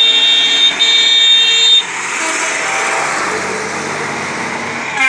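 A truck horn gives a long, steady blast with a brief break under a second in, then cuts off after almost two seconds. After that, lorry diesel engines run steadily as the trucks drive by.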